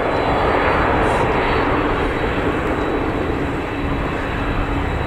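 The twin turbofan engines of a Boeing 767-300 airliner running steadily at low taxi power as it turns on the runway to line up for takeoff.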